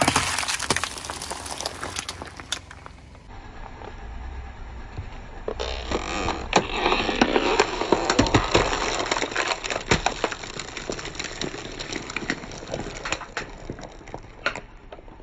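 A car tyre rolls onto a plastic carton of raw eggs, giving a long run of crackling and sharp cracks as the plastic crumples and the shells break. It is loudest in the middle, and a few seconds earlier a separate burst of crunching cuts off suddenly.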